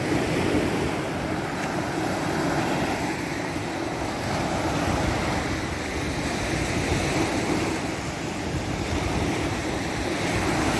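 Surf breaking and washing steadily onto a beach, with wind on the microphone.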